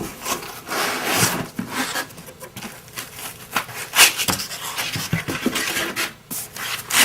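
Cardboard box and packaging rustling and scraping as it is handled, with a few sharp knocks, the loudest about four seconds in.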